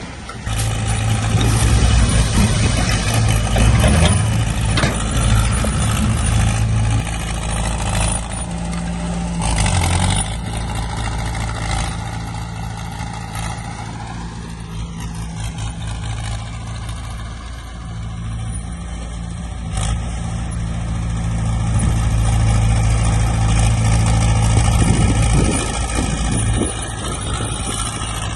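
Diesel engine of heavy earthmoving machinery running under changing load, its pitch rising and falling about halfway through, with a sharp knock near the end.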